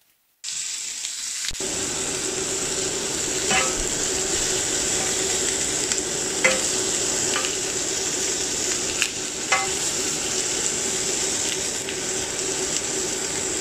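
Minced-meat kebab patties and stuffed green peppers sizzling steadily on a ridged cast iron grill pan, starting about half a second in. A metal spatula clinks against the pan a few times.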